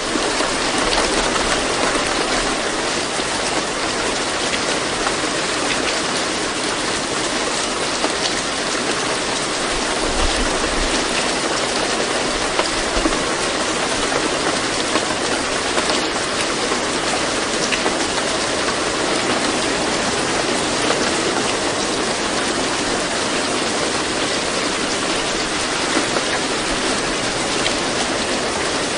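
Steady rain ambience: a continuous, even hiss of falling rain with no pauses.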